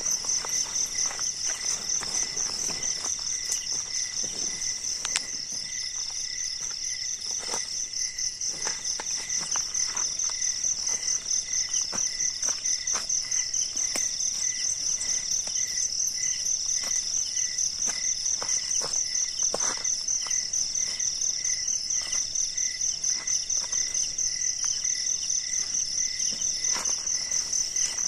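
A steady chorus of night insects: a high chirring that pulses evenly several times a second, with a fainter, lower pulsing note beneath. Faint scattered clicks and rustles of a tent being handled.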